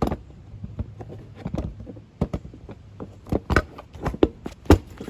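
A Kawasaki Z125's seat being handled and fitted back onto the bike: a series of irregular knocks and clunks, the loudest a sharp knock about three-quarters of the way through.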